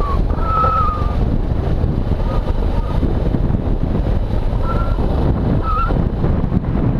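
Small motorcycle riding down a gravel track: a steady rush of wind buffeting the mounted camera's microphone over the bike's running and rolling noise. Short whistling tones sound near the start, and again a few times around two to three and five to six seconds in.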